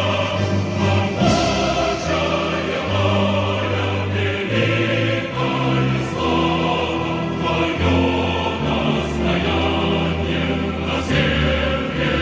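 Choral music: a choir singing over sustained, slowly changing bass notes.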